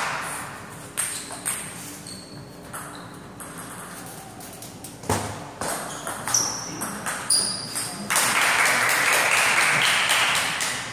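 A table tennis rally: the ball clicks sharply off the paddles and table about twice a second, some hits with a short high ping. For about the last three seconds a steady rush of applause follows as the point ends.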